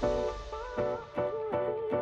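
Background music: a melody over plucked-string accompaniment.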